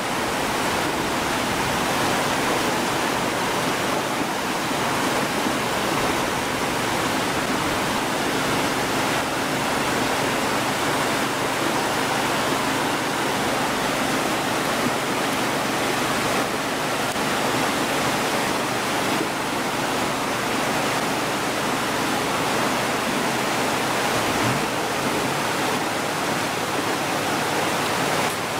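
Fast, turbulent river water rushing steadily, breaking and churning around a half-submerged pickup truck.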